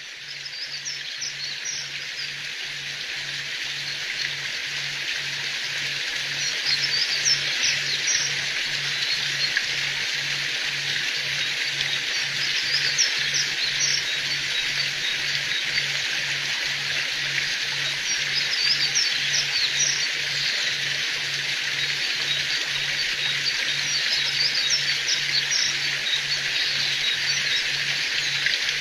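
Forest ambience: a steady high hiss, with bird chirps coming in scattered clusters and a low, regular pulse repeating about one and a half times a second. It fades in over the first few seconds.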